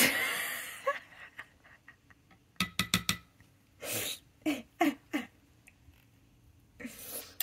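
A person's breathy exhales, several short low vocal sounds that fall in pitch, and a quick run of clicks from a pen and notebook being set down and moved on a desk.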